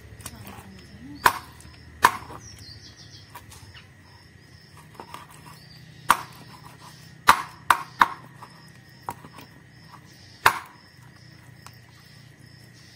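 A blunt khukuri chopping through fish pieces onto a wooden board: about seven sharp chops at irregular intervals, with a quick run of three near the middle.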